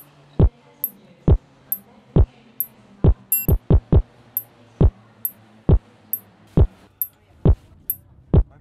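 Electronic music with a heavy kick drum, roughly one beat a second with a few quicker runs, and high ticking cymbals over a low sustained bass.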